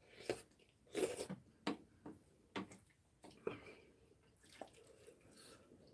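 Quiet eating sounds: a wet slurp about a second in as a spoonful of rice goes into the mouth, then scattered short smacks and clicks of chewing and a metal spoon in a ceramic bowl.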